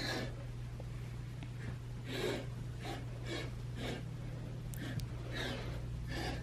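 A snake huffing: a series of short, breathy hisses about a second apart, over a steady low hum.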